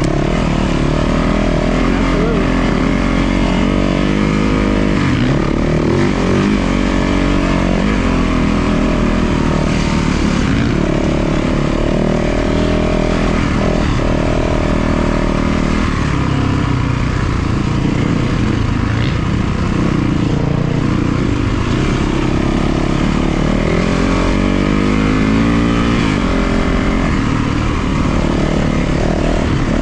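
450cc four-stroke single-cylinder dirt bike engine under way off-road, its pitch rising and falling again and again as the throttle is worked. Loud throughout.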